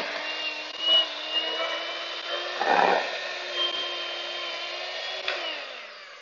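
Electric hand mixer running with its beaters in cookie dough, a steady motor hum with a louder burst about halfway through. Near the end it is switched off and the motor's whine falls in pitch as it winds down.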